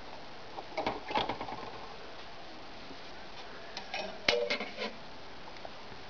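Scattered plastic clicks and knocks from handling a boombox's CD lid and disc and opening a microwave door, with a sharper clack about four seconds in.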